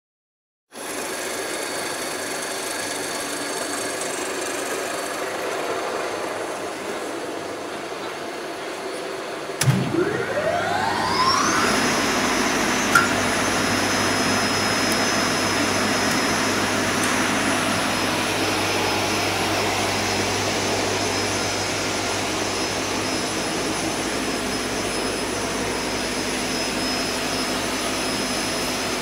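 MSP-1500 multi-rip circular saw for panel materials starting up about ten seconds in. A click is followed by a whine that rises in pitch over about two seconds as the saw motor spins up, and the saw then runs steadily with a high whine. Before that there is a steady mechanical hum.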